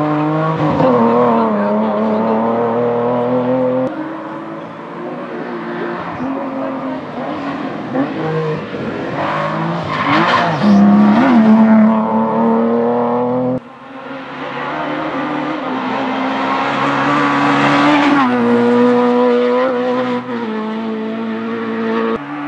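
Competition car's engine driven hard, the revs climbing and then dropping at each gear change. The sound breaks off abruptly about two-thirds through, then resumes with the revs rising again.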